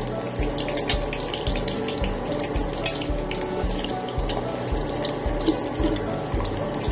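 Egg frying in hot oil in a pan: a steady sizzle with irregular crackles and pops of spattering oil. Background music with a steady beat runs underneath.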